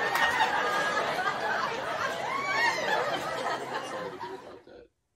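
People laughing, a dense wash of laughter that trails off and cuts out near the end.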